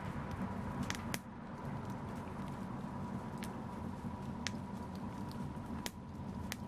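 Wood fire in a fireplace crackling, with about half a dozen sharp pops spread over a steady low rush of flame.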